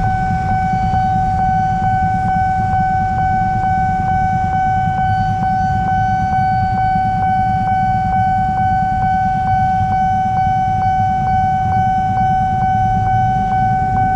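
Railroad crossing warning bell ringing steadily while the gates are closed for an approaching train. It gives one high ringing tone, struck about two and a half times a second, over the low running of idling buses, cars and motorcycles waiting at the crossing.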